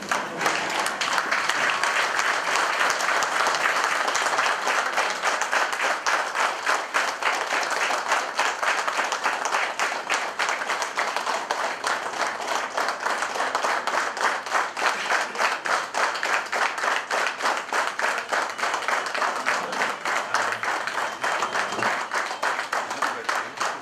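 A roomful of people applauding steadily, starting suddenly and thinning into more separate claps near the end.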